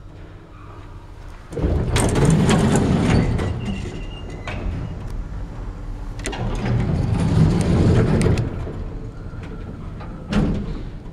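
Old original Otis elevator running: two loud stretches of rumbling door and machinery noise, starting about two seconds in and again about six seconds in, with a sudden knock about ten seconds in.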